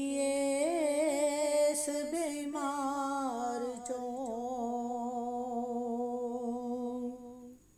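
A woman's voice singing a long wordless drawn-out line of a Punjabi naat, unaccompanied, holding the note with small ornamental turns before it fades out near the end.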